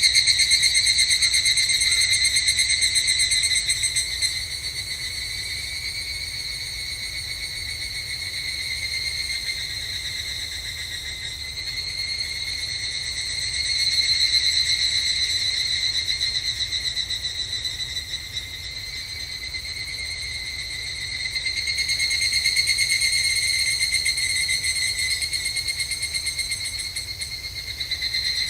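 Chorus of higurashi (evening cicadas) calling, a continuous high, rapidly pulsing trill that swells and fades in slow waves as calls overlap.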